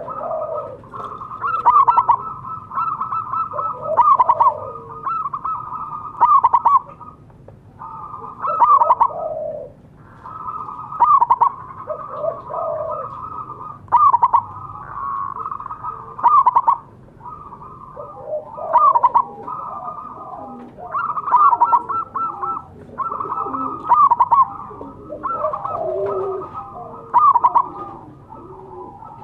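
Zebra dove cooing: a steady run of stuttering, trilled coo phrases, with the loudest notes coming about every two and a half seconds. Softer, lower calls sound underneath, most of all in the second half.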